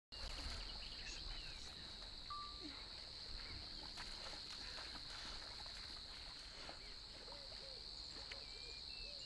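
Bush ambience: a steady high-pitched insect drone, with a few faint bird chirps scattered through it.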